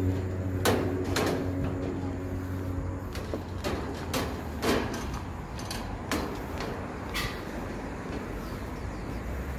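Footsteps on an elevated metal walkway: sharp, uneven knocks roughly every half second to a second. Under them is a steady low hum that fades out about three seconds in.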